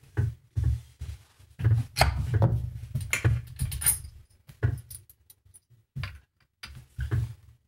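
Metal slide plate of a Juki industrial straight-stitch sewing machine slid open and the bobbin case and bobbin lifted out by hand: a run of irregular metallic clicks, knocks and small clinks, busiest about two to four seconds in.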